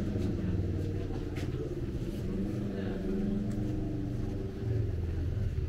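A motor vehicle's engine running at a steady low pitch, growing a little louder near the end.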